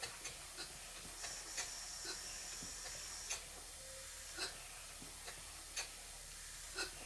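Stuart Twin Victoria twin-cylinder model steam engine slowing to a stop as its steam tap is closed. Its ticking beats spread out to a few irregular ticks over several seconds, with a thin steady hiss for a couple of seconds about a second in.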